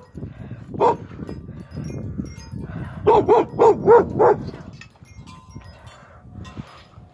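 Dog barking: one bark about a second in, then a quick run of five or six barks a little after three seconds, over a low rumble on the microphone.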